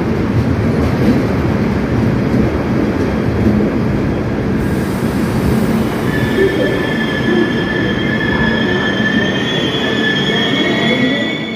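LHB passenger coaches rolling slowly past with a steady rumble of wheels on rails. About halfway through, a high metallic squeal of several wavering tones joins in as the arriving train brakes toward its stop.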